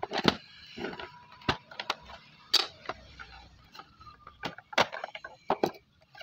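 About ten sharp, irregular clicks and knocks of a plastic portable radio being handled and turned over, and of large cylindrical batteries being worked in and out of its battery compartment.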